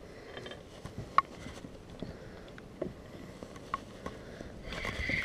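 Spinning rod and reel being handled: a few faint, separate clicks and taps. Near the end comes a short whirring from the reel being cranked.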